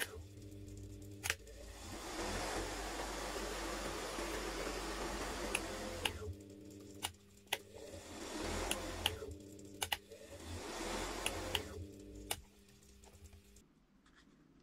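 Old washing machine motor running with a steady hum and whirring in spells, with sharp clicks in between; it shuts off near the end.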